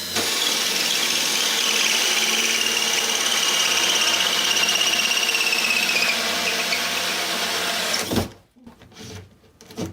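Power drill boring a new hole for the dishwasher drain. It runs steadily for about eight seconds with a high whine that sags a little in pitch under load, then stops abruptly.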